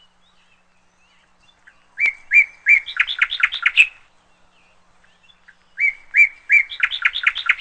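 A songbird singing two similar phrases a couple of seconds apart, each a few clear spaced notes that speed up into a quick run climbing a little in pitch.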